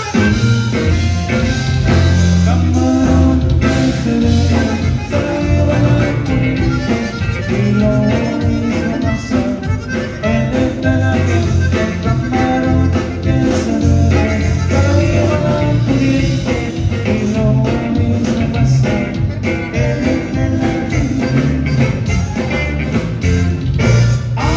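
Live conjunto band playing: button accordion, electric guitar, bass and drums over a steady dance beat.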